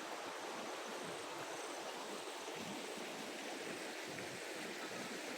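Swollen, rain-fed river water rushing steadily, an even hiss-like rush with no breaks.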